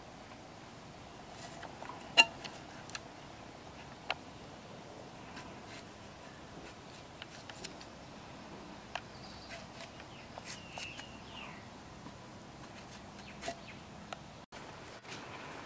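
Sparse soft clicks and taps of a knife cutting tomatoes held in the hand, with the pieces dropping onto leaves in a clay pot; the sharpest click comes about two seconds in.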